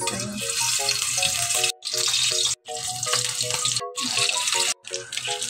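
Slices of red sausage frying in hot oil in a metal wok over a strong flame, sizzling steadily. The sizzle cuts out abruptly for a moment four times, and a light background music melody plays under it.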